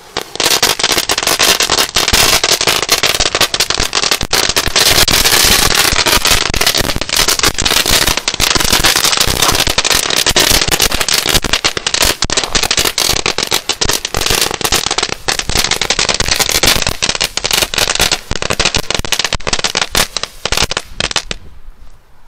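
A blixtband firecracker strip going off: a fast, continuous crackle of small bangs for about twenty seconds, stopping near the end.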